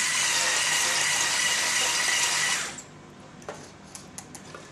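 Electric hand mixer with whisk beaters running steadily in a thick beeswax and olive oil cream in a saucepan, switched off suddenly about two and a half seconds in. A few light clicks follow.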